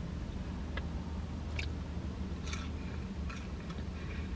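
Quiet car interior with a steady low hum and a few faint, short rustles and clicks, about four of them spread out, as small things are handled in the lap.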